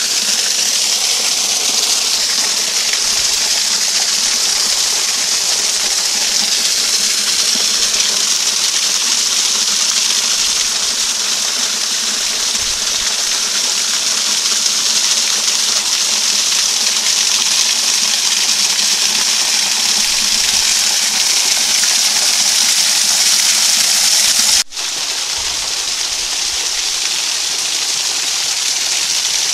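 Desert canyon waterfall, heard up close: a loud, steady rush of falling water. It cuts out for an instant near the end and comes back slightly quieter.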